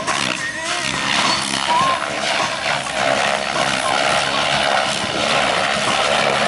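Radio-controlled helicopter flying aerobatics: its rotor blades whooshing loudly, with a whine that wavers in pitch during the first two seconds.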